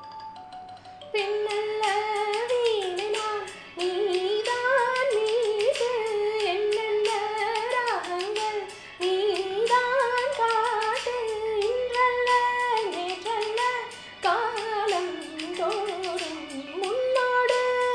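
A woman singing a Tamil song solo, her melody sliding and ornamented, over backing music with a steady ticking beat. The singing comes in about a second in.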